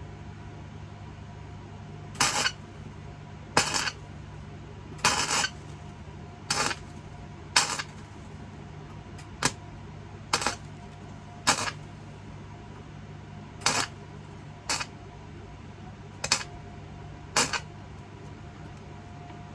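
Electric arc welder laying a series of short tack welds: about a dozen brief crackling bursts of arc, each well under a second, one to two seconds apart, over a steady low machine hum.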